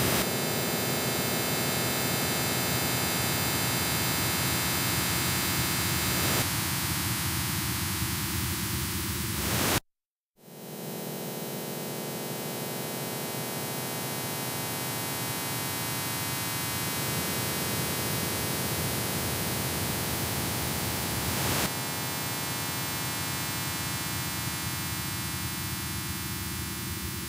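Industrial noise music: a dense wall of static hiss layered with a stack of steady droning tones. About ten seconds in it cuts off abruptly to silence for half a second, then the noise comes back. Its texture shifts a few more times.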